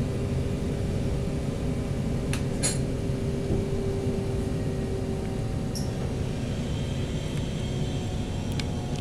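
Steady low rumble of a Rhaetian Railway Bernina Express train running along its metre-gauge track, heard from inside the passenger carriage. A few short clicks and squeaks cut through it, two close together a couple of seconds in and more later on.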